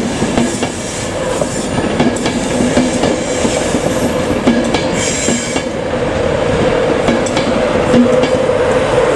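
An LNER InterCity 225 train, Mark 4 coaches with a Class 91 electric locomotive at the rear, rolling past with a steady clatter of wheels over rail joints. A steady electric hum grows stronger near the end as the locomotive goes by.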